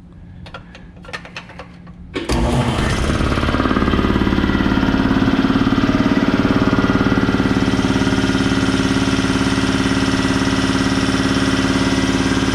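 A few light clicks, then about two seconds in the Campbell Hausfeld 80-gallon air compressor starts up suddenly and runs steadily at a constant pitch, its motor and pump running loud and even.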